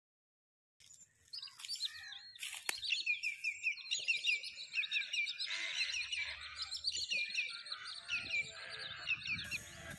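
Many small birds chirping, a dense chorus of short, quick, falling notes starting about a second in.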